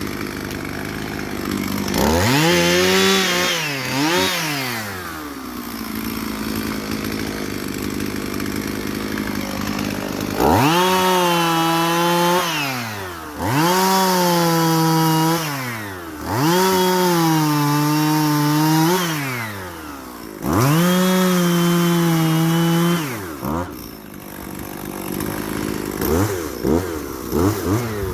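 Two-stroke chainsaw idling, then opened to full throttle in a quick double rev and four long runs of a few seconds each, its pitch sagging under load as it cuts wood. It drops back to idle between runs and gives a few short throttle blips near the end.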